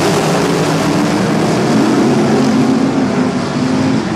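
A pack of NASCAR modified race cars running around the track, several V8 engine notes overlapping in a steady, loud drone.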